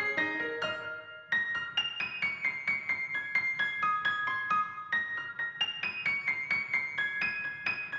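Background piano music: a steady stream of quick single notes, pausing briefly about a second in.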